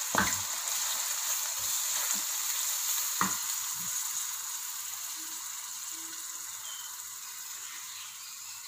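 Oil and sauce sizzling in a wok as food is stir-fried, a steady hiss that slowly fades. A wooden spoon knocks against the wok twice, once right at the start and again about three seconds in.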